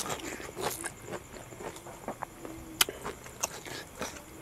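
Close-up eating sounds of two people eating rice and pork curry by hand: wet chewing and lip smacks, with irregular small clicks. The sharpest click comes a little under three seconds in.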